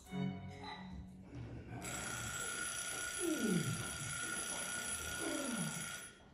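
An electric bell rings continuously for about four seconds, starting about two seconds in, with two low falling swoops sounding under it. Before the bell, low bowed-string music trails off.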